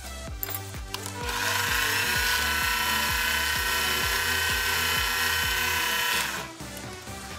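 Chinese mini lathe starting up, its spindle whine rising quickly to a steady high pitch as the chuck comes up to speed, then running for about five seconds and cutting off. Background music plays throughout.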